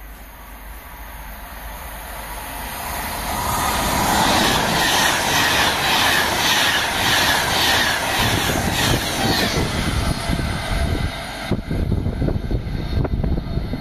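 Express passenger train running through at high speed on the main line: a rush of wheels on rail that builds over about four seconds, peaks with a fast, regular clatter from the wheels, then fades with a few sharp knocks near the end.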